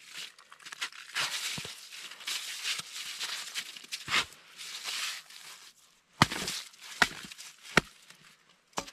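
Metal ice skimmer scraping and scooping crunchy slush and ice chips in an ice-fishing hole, then four sharp knocks about a second apart as it strikes the ice.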